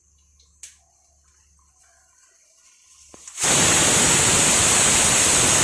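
Near quiet at first, then a loud, steady hiss that starts abruptly about three and a half seconds in and keeps going without change.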